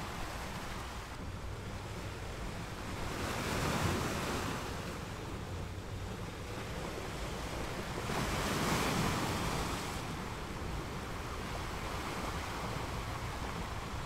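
Sea waves washing ashore: a steady rush of surf that swells twice, about four seconds in and again around nine seconds in.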